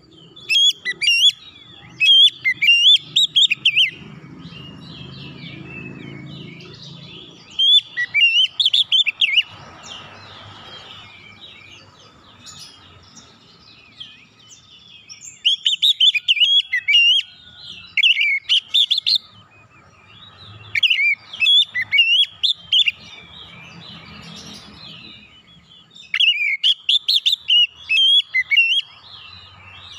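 Oriental magpie-robin (kacer) singing loud bouts of rapid, varied phrases, about six bouts separated by pauses of a few seconds.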